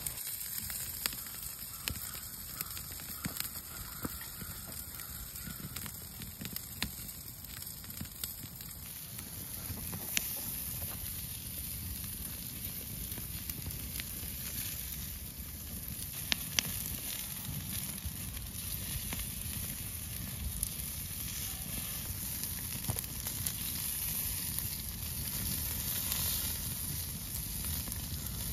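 Wood fire crackling under meat sizzling in a wire grill basket, with frequent sharp pops over a steady hiss.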